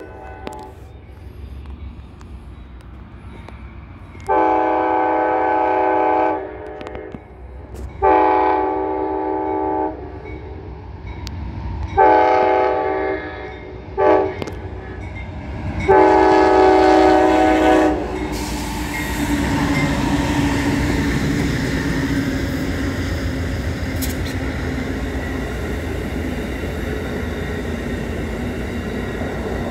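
Chord horn of an Amtrak GE P40DC diesel locomotive sounding the grade-crossing signal: two long blasts, a shorter one with a brief toot after it, then a long one. The locomotive and its passenger cars then roll past with a steady rumble of engine and wheels on rail.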